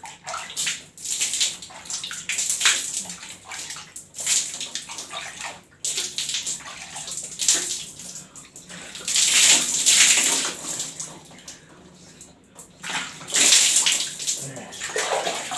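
Water being splashed onto the face by hand to rinse off soap lather, in repeated surges of splashing and dripping a second or two long.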